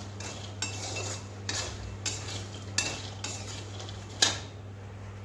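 Metal spoon scraping and clinking against a cooking pan as roasted makhana (fox nuts) are stirred: about seven irregular strokes, the last and loudest near the end, over a steady low hum.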